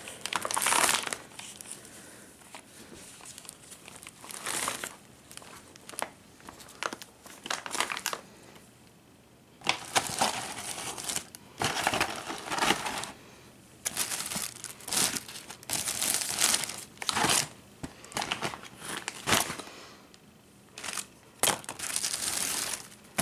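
A plastic carrier bag full of boxed fireworks crinkling and rustling in irregular bursts as the contents are moved about, with brief quieter gaps.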